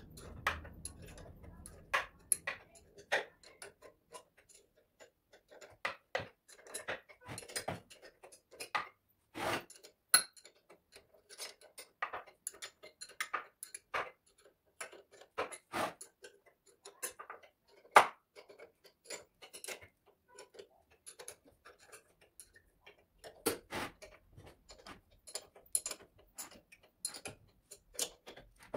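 Irregular sharp metallic clicks and taps of hand tools and bolts against the compressor's bolted end cover and housing during assembly, with one louder knock about two-thirds of the way through.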